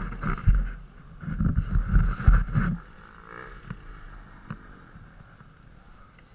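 Motocross bike running, heard through an on-board camera, with wind buffeting the microphone. The heavy low rumble drops away about three seconds in, leaving a quieter steady running sound.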